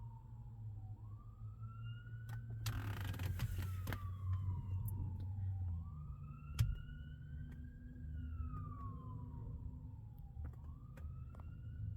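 Fire rescue truck's siren on its wail setting, gliding slowly up and down about every four to five seconds, over a low engine rumble. A burst of hiss comes about three seconds in and a single thump at about six and a half seconds.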